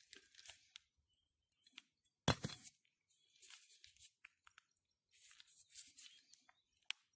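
Faint, intermittent scuffs and crunches of loose dry soil underfoot, with one sharp knock a little over two seconds in.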